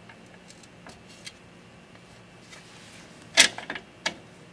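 Sharp metallic clicks and clinks of nuts and the front fender stays being handled on the tricycle's front axle bolts: a quick cluster about three and a half seconds in, then one more click.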